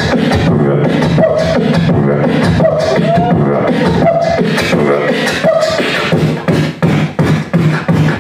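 Human beatboxing into a handheld microphone, amplified over a club sound system: a fast run of percussive mouth sounds imitating a drum kit over a steady low bass hum, with short hummed tones. In the last couple of seconds the pattern breaks into separate hits with brief gaps.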